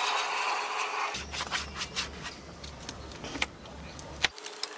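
Hands rubbing and pressing a vinyl decal's transfer sheet onto a boat hull: a dry scuffing for about the first second, then light scattered taps and crinkles over a low steady hum that stops near the end.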